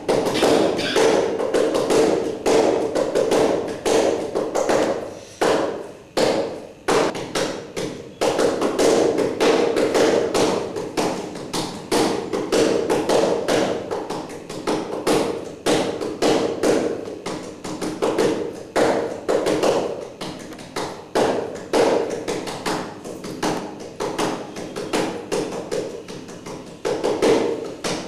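Rapid, irregular tapping and knocking, several strikes a second, continuing throughout.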